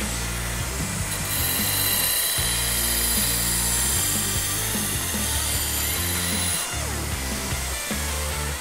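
Hardcore Economy 2x72 belt grinder grinding metal against its abrasive belt, a steady hiss that grows louder about a second in and eases near the end. Background music with a steady beat plays underneath.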